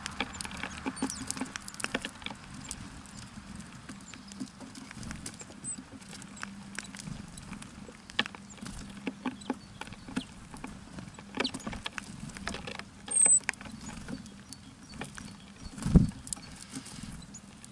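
Small birds at a feeder pecking and hopping, giving a steady run of quick taps and scratches, with one brief high call about 13 seconds in and a loud soft thump near the end.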